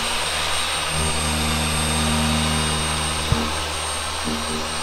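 Handheld dual-action polisher running steadily with its pad against the car's single-stage paint, buffing in polishing compound. There is one short sharp click a little past three seconds in.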